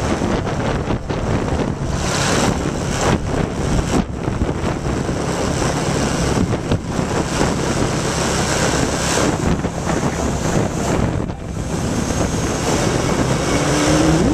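Wind rushing over the microphone of a vehicle moving through city traffic, with an engine running steadily underneath.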